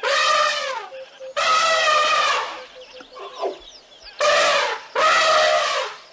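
An animal calling four times in loud, drawn-out pitched calls, some dropping in pitch at the end.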